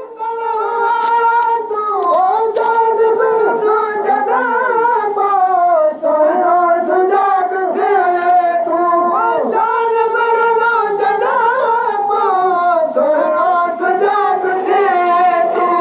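A high voice singing a Sindhi maulood, a devotional song in praise of the Prophet, unaccompanied. The melody is sustained and heavily ornamented, with the pitch wavering and sliding between long held notes.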